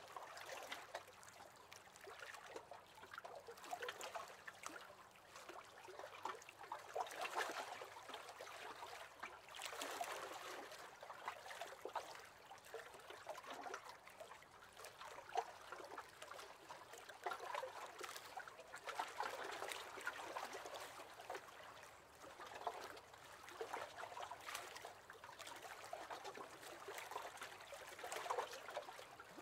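Small waves lapping against the hull of a wooden rowing boat, faint, coming in gentle irregular swells.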